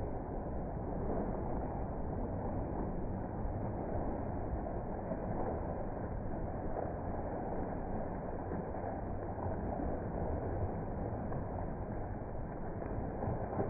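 Steady, muffled rushing noise of sea surf and wind on the microphone, with no distinct splashes standing out.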